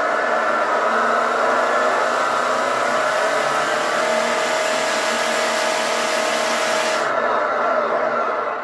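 Simulated engine sound from an ESS Dual+ sound module's small speaker in an RC 6x6 crawler, running under throttle together with the whir of the truck's electric motor and spinning drivetrain. About seven seconds in the high whir stops suddenly as the throttle is let off, and the simulated engine runs on at a lower level.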